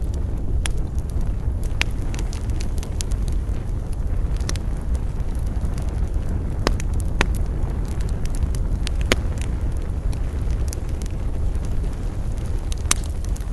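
Wood campfire burning and crackling: sharp pops and snaps come at irregular intervals over a steady low rumble.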